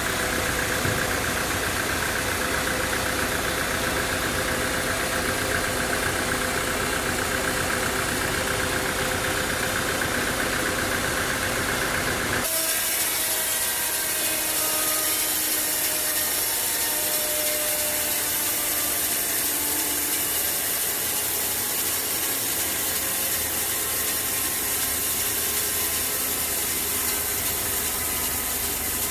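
Sawmill saw and its engine running as timber is cut, a steady mechanical noise. About halfway through the sound changes suddenly to a brighter hiss with less low hum.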